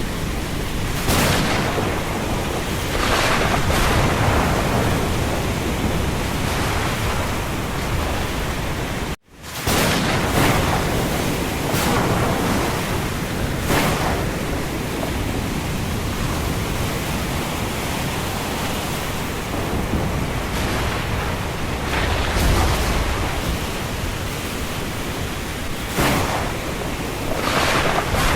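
Storm ambience: strong wind rushing steadily, swelling in gusts every few seconds, with a low rumble of thunder about two-thirds of the way through. The sound cuts out for an instant about a third of the way in.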